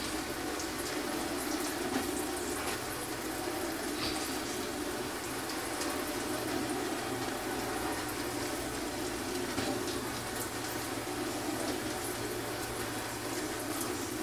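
West Bend Stir Crazy electric popcorn popper heating its kernels: a steady sizzling hiss over the hum of the stirring-arm motor, with a few faint clicks. The kernels are still at the heating stage, not yet popping in earnest.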